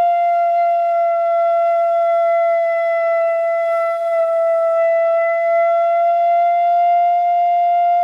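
Bamboo pífano (Brazilian transverse fife) sounding one long held note, with a little breath noise. The player sweeps his air direction across the embouchure hole, from too high through the ideal centre to too low, so the pitch sags slightly a little past the middle.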